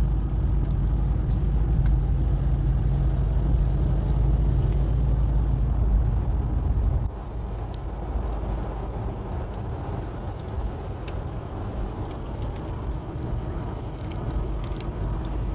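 Car engine running as a steady low rumble that drops sharply to a quieter level about seven seconds in, with faint scattered clicks.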